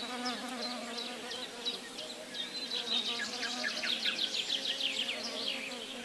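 A flying insect such as a bee or fly buzzing steadily, its low pitch wavering slightly. Over it come quick high twittering chirps, densest from about three to five seconds in.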